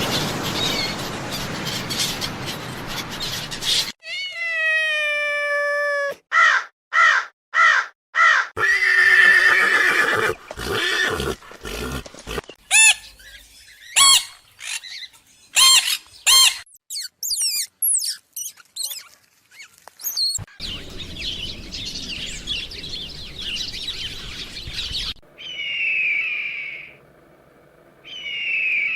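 A run of short, separate animal recordings that changes every few seconds. It goes from a stretch of noisy ambience to a falling pitched call, then quick repeated calls and sharp chirps, with another noisy stretch and bird-like chirps near the end.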